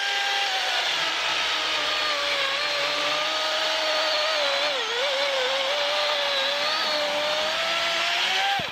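DeWalt 60-volt brushless battery chainsaw cutting through a thick log. Its steady electric whine drops in pitch as the chain bites into the wood and sags briefly about halfway through. The pitch rises again as the chain breaks through, and the whine stops abruptly at the end.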